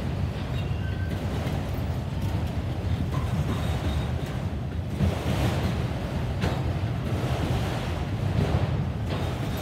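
CSX freight train of autorack cars rolling past: a steady low rumble of steel wheels on the rails, with a few sharp knocks as the cars go by.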